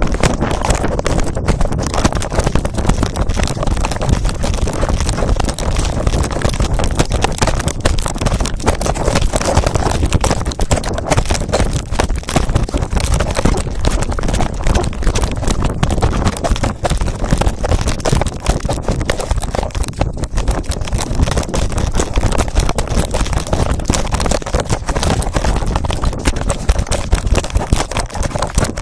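Constant scraping, knocking and wind noise from a phone taped to a moving dog's collar, the microphone rubbed against the collar and fur and jolted with each movement.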